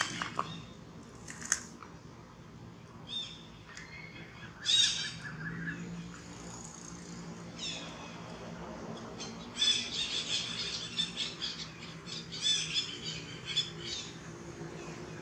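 High-pitched squeaky animal calls: a few separate calls in the first five seconds, then a quick run of them from about ten to fourteen seconds in.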